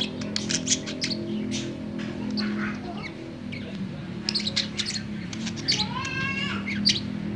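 Budgerigar warbling: rapid chattering chirps and clicks, with a rising whistle about six seconds in, over a steady low hum.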